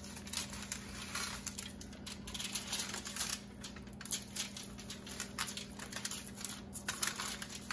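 Aluminium foil crinkling and lemongrass leaves rustling as hands push the stalks into whole raw fish on a foil-lined tray: an irregular run of small crackles and rustles.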